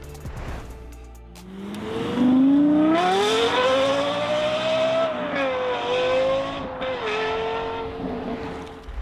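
Car engine accelerating hard: a low rumble for the first second and a half, then the engine note climbs steeply for about three seconds, dips slightly twice and holds at high revs near the end.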